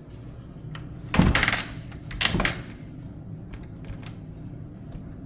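A wooden door being pushed against its frame twice, the latch knocking and rattling on the jamb; the strike plate sits well off the latch.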